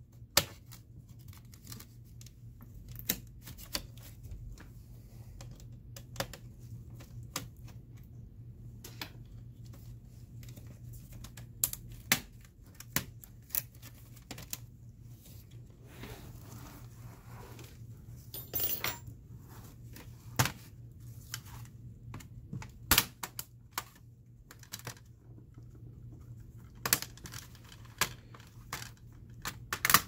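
Plastic clips of a Dell Inspiron 15-5552 laptop's palmrest and bottom case clicking and snapping as the two halves are pried apart by hand, in irregular sharp clicks with a brief scrape partway through. A steady low hum runs underneath.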